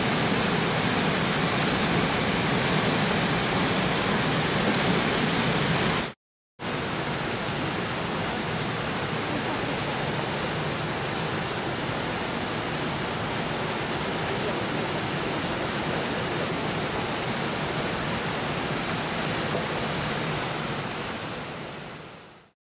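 Steady rushing of the river and waterfall at Brooks Falls. It drops out briefly about six seconds in, returns a little quieter, and fades away at the end.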